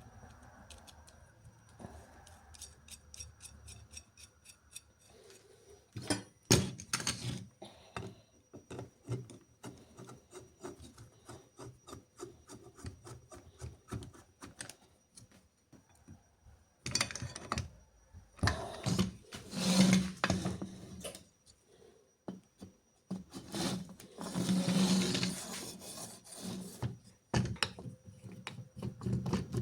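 Hand-tool work on wood: irregular scraping and rubbing strokes with scattered sharp knocks, a loud knock about six seconds in, and longer, louder scraping runs in the second half.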